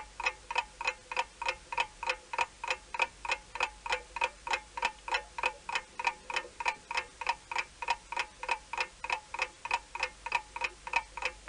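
Waterbury "Huntley" parlor clock's spring-driven brass movement ticking steadily, about four ticks a second.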